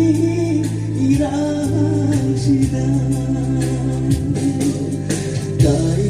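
A song: a singing voice over a backing with a bass line and a steady beat.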